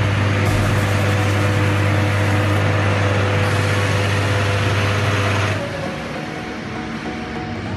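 Electric motor of tyre-fitting equipment running with a steady hum and a noisy whirr, then winding down with a falling tone about five and a half seconds in. A quieter machine sound continues after that.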